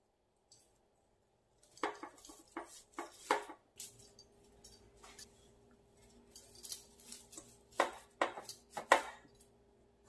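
Cut sneezeweed stems being pushed into an arrangement in a metal garden bucket: leaves rustling and stems tapping and clicking in an irregular string, starting about two seconds in, the loudest taps near the end.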